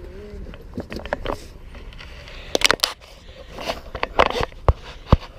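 A run of close, irregular scrapes, clicks and rustles, with short louder clusters about a second in, near the middle and toward the end.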